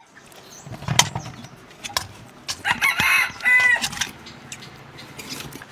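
A rooster crowing, a loud two-part call about two and a half seconds in, after a couple of sharp knocks.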